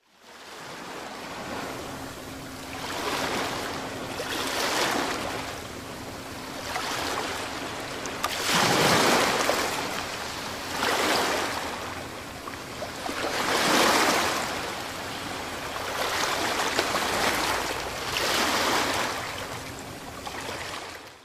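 Ocean waves washing in and out, a swell every two to four seconds, with the loudest surges about nine and fourteen seconds in. It fades in at the start.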